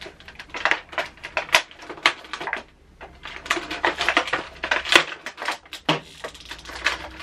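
Clear plastic packaging crinkling and crackling in irregular bursts as action figures are pulled from their plastic bags and trays, with the sharpest crackles about one and a half, two and five seconds in.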